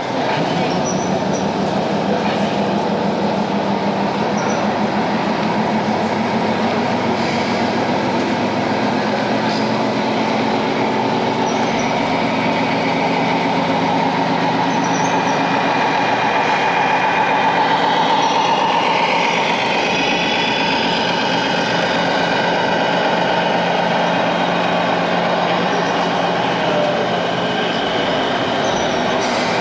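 RC model trucks and construction machines running: a steady engine-like hum, likely from engine-sound modules, with the whine of small electric motors and gears that rises and falls in pitch, strongest past the middle.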